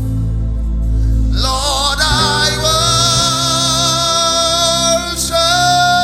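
Live gospel worship music: sustained keyboard and bass chords, then from about a second and a half in a singer comes in and holds one long wavering note over the band.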